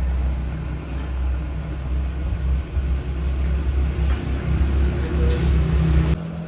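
A steady low mechanical rumble with a hum, cutting off suddenly near the end.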